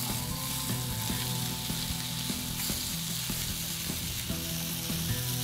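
Chicken kababs sizzling as they shallow-fry in oil in a pan, with scattered clicks of a utensil against the pan as they are turned, over a low steady hum.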